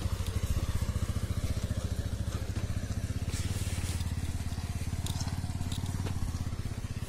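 Bajaj Pulsar 150's single-cylinder four-stroke engine running steadily at low revs as the motorcycle is ridden slowly uphill, its exhaust pulses closely spaced.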